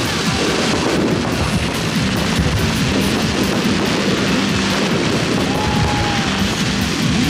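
Fireworks display going off in rapid succession, a dense stream of bursts and crackling, with music playing underneath.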